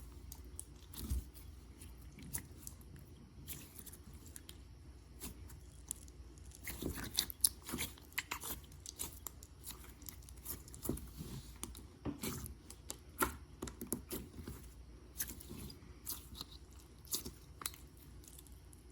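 Slime being squished and poked by hand, giving faint, irregular sticky clicks and small crackling pops.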